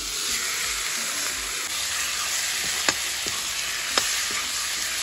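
Raw pork sizzling in hot oil in a wok, the hiss rising sharply just as the meat goes in. A metal spatula stirring it clinks twice against the wok.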